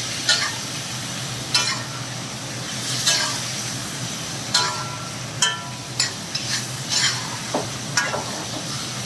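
Chicken pieces sizzling steadily in hot ghee in a karahi, while a metal spatula stirs them, scraping and clinking against the pan about once a second. The chicken is being bhuna-fried in ghee.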